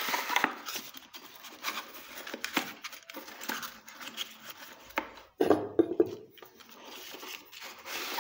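A cardboard box being opened and the items inside handled: rustling and crinkling of packaging with scattered small clicks and knocks, and a louder knock about five and a half seconds in.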